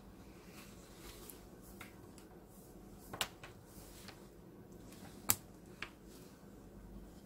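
Small, sharp clicks of a metal 3.5 mm earphone plug being handled and fitted into its plastic housing: one about three seconds in, the loudest about five seconds in, and a fainter one just after. A faint low hum runs underneath.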